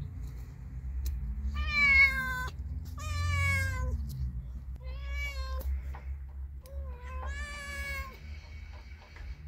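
A cat meowing four times, each meow about a second long and sliding slightly down in pitch, over a steady low rumble.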